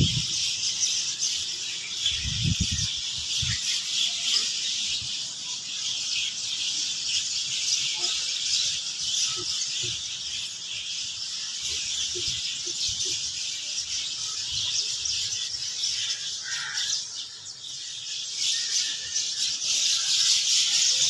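A large flock of small birds chattering and twittering at once, a dense, continuous high-pitched chorus that thins briefly about three-quarters through, then picks up again.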